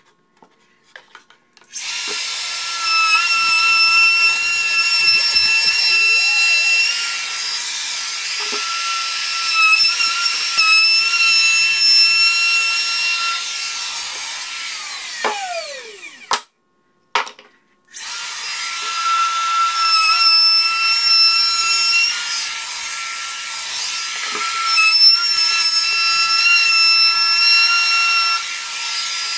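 A handheld DeWalt router running at full speed with a high, steady whine, cutting along the wooden edges of a table frame. About halfway through it is switched off and winds down with a falling pitch, then is started again about two seconds later and keeps cutting.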